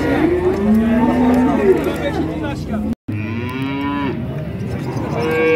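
Cattle mooing, several calls overlapping at first. The sound cuts out for a moment about three seconds in, then one falling moo follows, and near the end a long, high-pitched moo begins.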